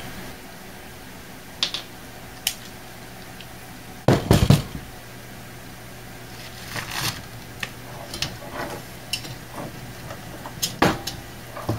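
Scattered clicks, knocks and clatter of a power supply's circuit board, with its aluminium heatsinks, being worked loose and lifted out of its sheet-steel case, with a louder clunk about four seconds in.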